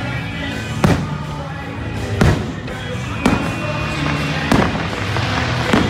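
Aerial fireworks shells bursting, five sharp booms about one every second and a quarter, over steady music.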